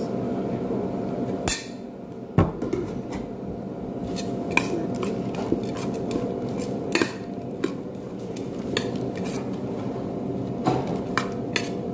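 Metal spoon scraping and clinking against a metal platter while stirring crushed nuts with sugar syrup: many short clicks, with one sharp knock about two seconds in. A steady hum runs underneath.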